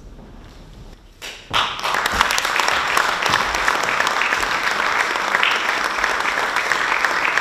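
Audience applauding, many hands clapping together, starting about a second and a half in and holding steady.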